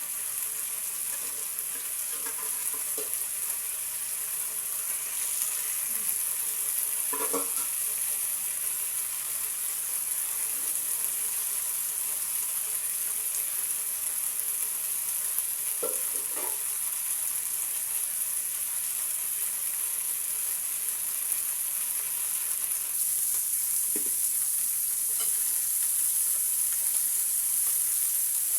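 Pieces of fish frying in hot oil in a frying pan, a steady sizzling hiss.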